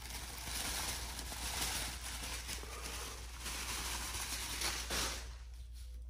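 Bubble wrap crinkling and rustling as a steering wheel is pulled out of it by hand, dying down about five seconds in.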